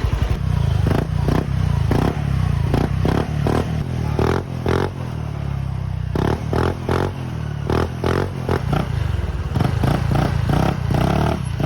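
Honda Click scooter's single-cylinder engine through an Exos RX7 aftermarket exhaust with its silencer insert fitted, running while stationary and revved in many short throttle blips.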